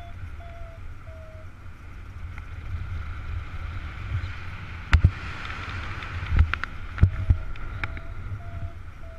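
Paragliding variometer beeping in short, even tones about every two-thirds of a second, the signal that the glider is climbing in lift. The beeps pause for several seconds in the middle and resume about seven seconds in. Airflow rumbles on the microphone throughout, with a few loud knocks around five to seven seconds in.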